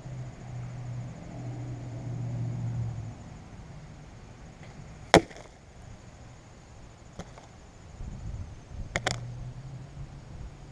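An arrow strikes at the targets with one sharp, loud crack about five seconds in, followed by a faint click and then a quick double knock near nine seconds. A low rumble sits underneath for the first three seconds, then fades.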